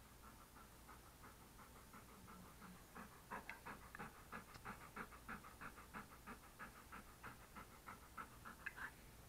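English Cream Golden Retriever panting close to the microphone, quick even breaths at about four or five a second, faint at first and louder from about three seconds in.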